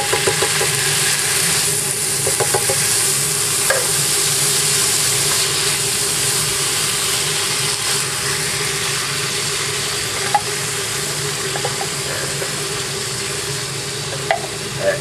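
Canned whole tomatoes and browned ground beef sizzling in a hot skillet, over the steady hum of a kitchen exhaust fan, with a few light taps of a wooden spoon and can against the pan.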